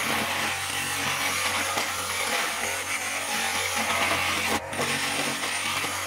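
Homemade wood lathe driven by a washing-machine motor, running steadily with a low hum while a hand-held steel tool scrapes the spinning wooden workpiece in a continuous hiss. There is a brief dropout about four and a half seconds in.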